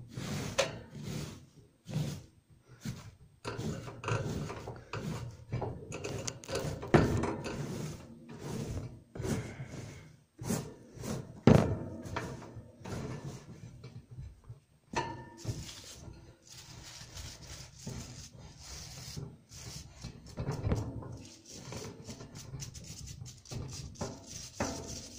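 Wood-shaving and hay bedding being scraped and scooped in a plastic guinea pig cage base: irregular rustling broken by knocks and thunks against the cage.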